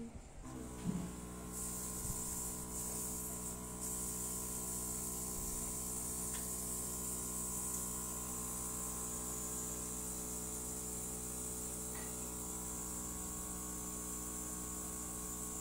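Makeup airbrush compressor running with a steady electric hum, which starts about half a second in. From about a second and a half in, a steady high hiss of air from the airbrush joins it.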